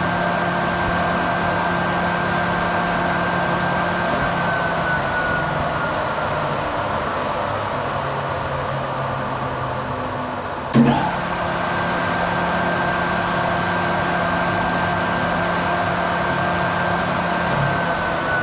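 Three-phase induction motor running with a steady hum and fan whine. About four seconds in, the whine slowly sags in pitch as the motor coasts with the power off. About eleven seconds in, a sharp click and a brief surge mark it being switched back on while still turning, a restart, and it runs steadily again before the pitch starts to sag once more near the end.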